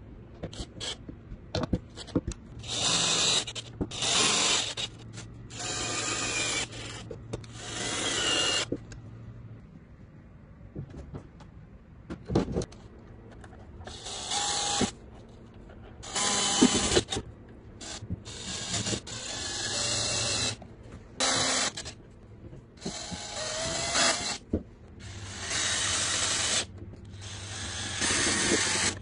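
Bosch 14.4 V cordless drill-driver driving screws through steel angle brackets into the wood, in about a dozen short runs of about a second each with pauses between.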